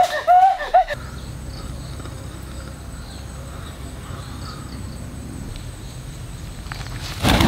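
Faint insect chirping over a steady low rumble. This follows about a second of repeated pitched vocal cries that cut off. A sudden loud noisy burst comes near the end.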